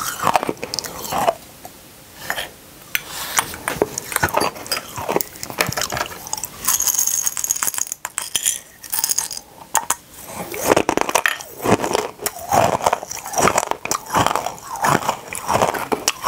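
Small hard mini candies being crunched and chewed close to the microphone: irregular sharp cracks and clicks, with a brief hiss about seven seconds in and denser crunching in the second half.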